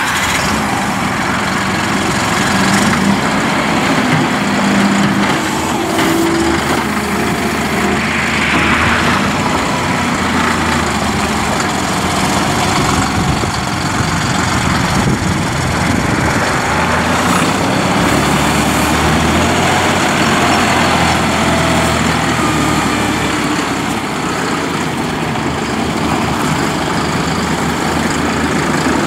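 John Deere 5075E tractor's three-cylinder diesel engine running as the tractor drives and works its front loader, the engine speed rising and falling.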